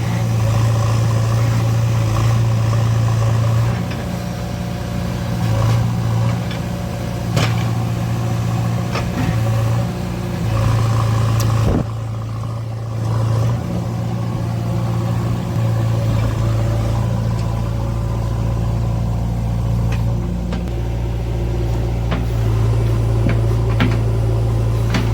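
Heavy diesel engine running with a steady low hum that swells and eases every few seconds as it works under load. A few sharp knocks are heard, the loudest about halfway through, and a deeper rumble joins in the second half.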